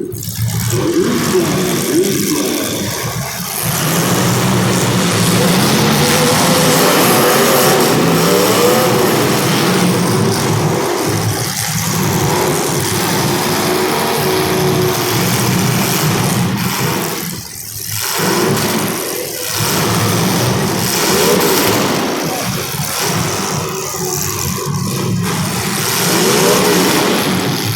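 Demolition derby car engines running and revving together: a loud, continuous mass of engine noise with pitches rising and falling, and a few brief dips in level.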